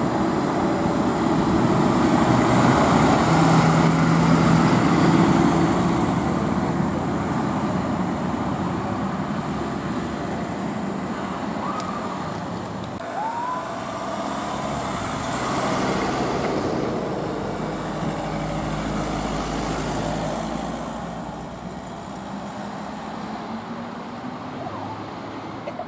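Fire engines and other emergency vehicles pulling away and driving past, their diesel engines running. The engine noise is loudest in the first few seconds as a truck passes close, then fades to lighter traffic noise.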